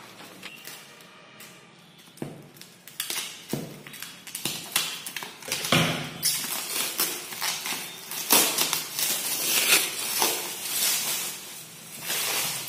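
Clear plastic stretch wrap being pulled and torn off a cardboard carton, crinkling and crackling in quick irregular bursts. It grows louder about three seconds in.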